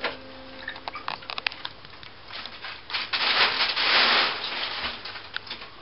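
Hands handling and smoothing wet plaster bandage onto a body cast. There are a few small clicks and crackles, then a louder rustling, rubbing stretch about three seconds in that lasts over a second.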